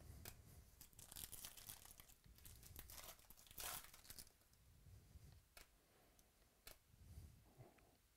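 Faint tearing and crinkling of a baseball card pack's wrapper as it is torn open, densest in the first half, then a few light clicks of cards being handled.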